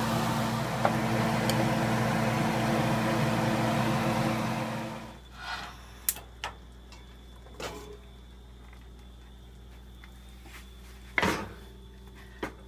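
Water boiling and sizzling hard in a wok of fried pork belly: a dense, steady hiss over a low hum that cuts off suddenly about five seconds in. After that come a few light knocks and a louder thump near the end as a wooden rice-steaming bucket is set onto the wok.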